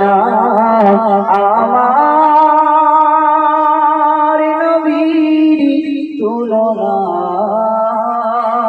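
A singer holding long, drawn-out notes of a Bengali Islamic gazal, wavering in pitch. The notes break off briefly about six seconds in, then one more long note is held.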